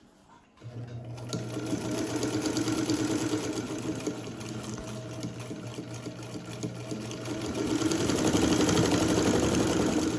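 Vintage Japanese all-metal Modern Home sewing machine, driven by its electric motor through a newly fitted belt, running a test row of stitches with a motor hum and fast needle clatter. It starts about half a second in, speeds up, eases a little in the middle, speeds up again near the end and stops.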